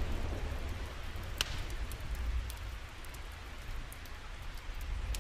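Thunderstorm ambience: rain falling steadily over a low rumble of thunder, with scattered fine drop ticks and one sharper tick about a second and a half in.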